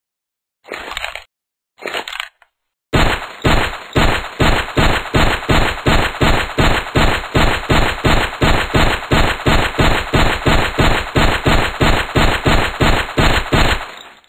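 Gunshot sound effects of a 9mm semi-automatic pistol firing a fast, even string of shots, about three a second for some eleven seconds, after two short bursts of noise at the start.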